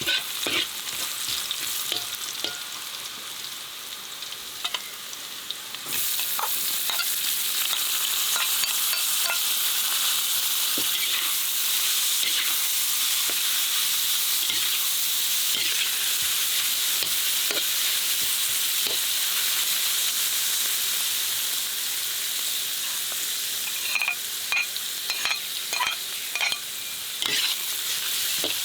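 Food frying in a hot pan, a steady sizzle that grows louder about six seconds in, with clicks and scrapes of a utensil stirring it, several close together near the end.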